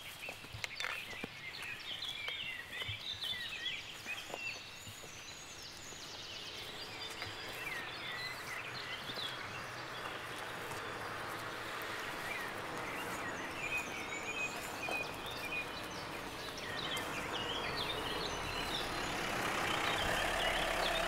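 Several birds singing, short chirps over a steady background haze. Over the last few seconds a car's low engine hum builds underneath.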